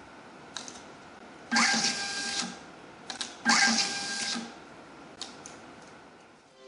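Intermec PM43 thermal label printer in peel-off mode feeding out labels: twice, a click and then about a second of motor whirring with a steady whine as a label is printed and presented on the peel bar. A few lighter clicks fall between.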